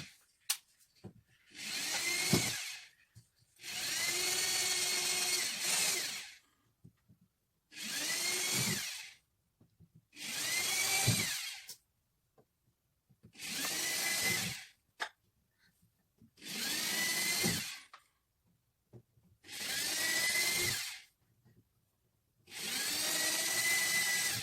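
Electric drill boring a series of mounting holes: eight short runs of one to two seconds, each spinning up with a rising whine, with pauses in between.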